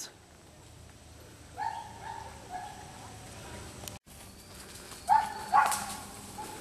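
Wirehaired Pointing Griffon puppies, seven weeks old, giving short high-pitched yips and whines, a few about a second and a half in and a louder pair about five seconds in.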